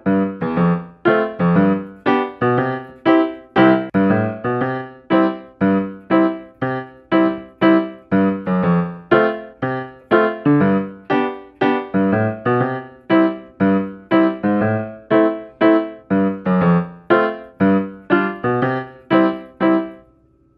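Background music on piano: short, evenly spaced notes, about two a second, that stop briefly near the end.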